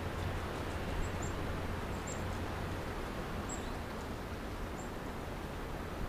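Steady hiss of a trail camera's microphone with quiet woodland ambience, broken by faint, very high short chirps about once a second.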